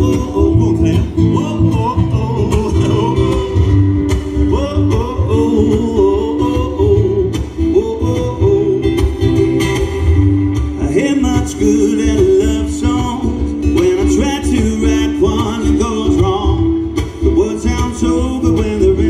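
A man singing live to his own strummed acoustic guitar, amplified through a stage PA.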